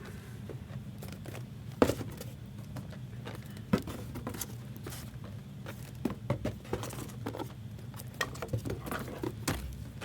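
Cardboard trading-card booster boxes being handled and slid back into their case: scattered clicks and rustles, with a couple of sharper knocks about two and four seconds in.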